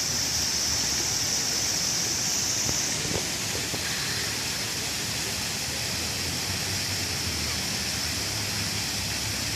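Water fountain splashing steadily, a continuous hiss of falling water; the hiss softens a little about three seconds in.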